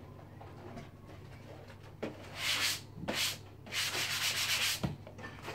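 Three rough rubbing strokes, about two, three and four seconds in, the last lasting about a second, over a steady low hum.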